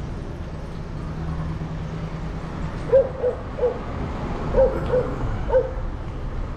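A dog barking in short barks, about six in all in quick groups starting about three seconds in, over a steady low rumble.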